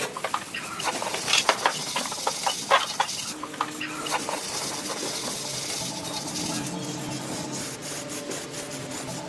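A run of sharp clicks and scrapes, then, from about three seconds in, a steady mechanical whir like a small motor running.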